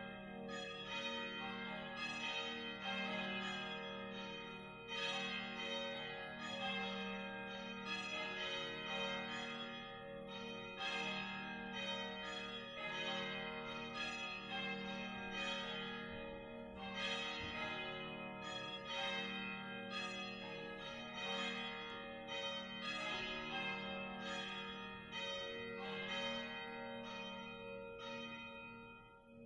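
Church bells ringing, a new strike about every second over long, overlapping rings; the ringing stops right at the end.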